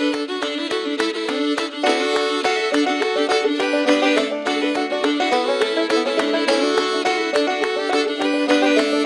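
Background music with fiddle and banjo in a bluegrass style, with a steady beat.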